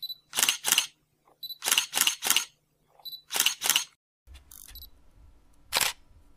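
Camera shutter clicks, mostly in quick pairs and threes, repeating about every second.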